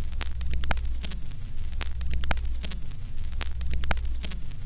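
Static sound effect: a steady low electrical hum with hiss and irregular crackling pops, about three a second, like a worn record or old tape.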